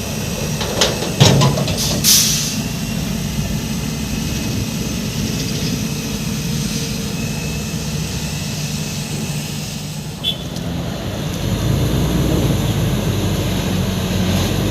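Heavy diesel truck engine running steadily, with a few knocks and a short hiss of air about two seconds in. The engine grows louder near the end as the truck pulls forward.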